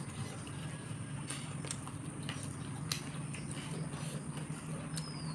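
Mouth-closed chewing and a few soft clicks as fingers pick at grilled chicken and rice on a plate, over a steady low hum.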